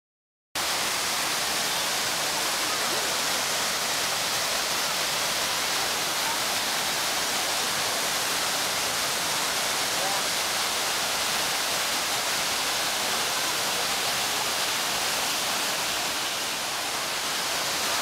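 Wachirathan Waterfall, a large waterfall plunging down a rock cliff, making a steady rush of falling water that cuts in abruptly about half a second in.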